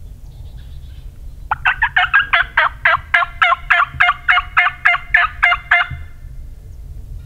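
Turkey call run as a long series of hen yelps: about sixteen evenly spaced notes, about four a second, each breaking from a high note down to a low one, starting about a second and a half in. It is loud and close, a hunter's call to draw or stir a wary tom.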